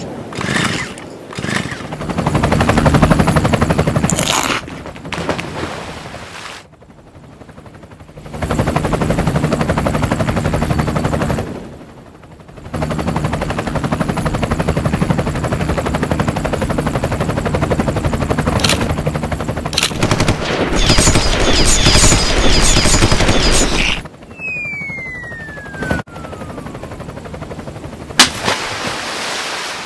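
Cartoon sound effects: a rapid chopping rotor sound of a palm tree turned helicopter, dropping out briefly twice. About 24 seconds in, a falling whistle glides down in pitch as the shark drops, and a sharp hit comes near the end.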